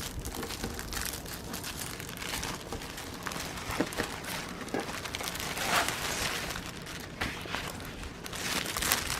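Packaging of a beaded cross stitch kit crinkling and rustling as it is opened and unrolled by hand, with irregular small crackles and handling clicks.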